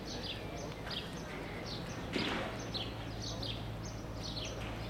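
Small birds chirping over and over: short, quick, downward-sliding chirps, several a second. A steady low hum runs underneath, and a brief rush of noise comes about two seconds in.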